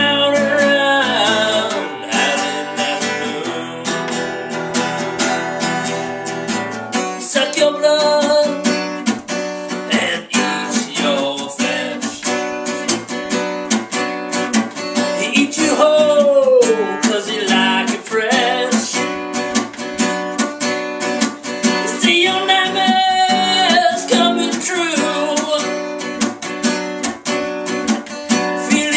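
Acoustic guitar strummed steadily while a man sings along, his voice holding long notes that slide up and down in pitch.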